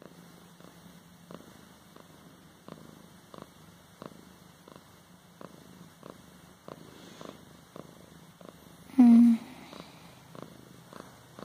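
Grey Persian cat purring steadily while being stroked, the purr pulsing with each breath about every two-thirds of a second. About nine seconds in, a brief, loud pitched call cuts across it.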